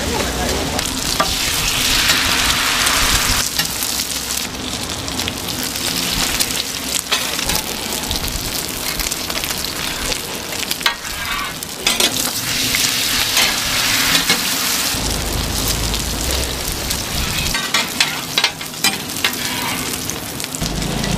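Batter pancakes with bean sprouts sizzling on a flat steel griddle, the frying hiss swelling twice. Metal spatulas scrape and clack against the griddle, most often near the end.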